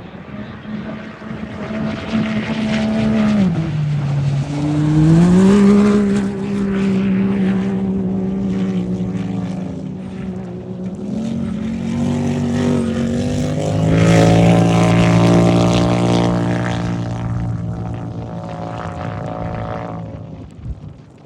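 Off-road race vehicle engines running hard past the course. The pitch drops and then climbs again around four seconds in. The sound is loudest about five seconds in and again about fourteen seconds in, then fades away near the end.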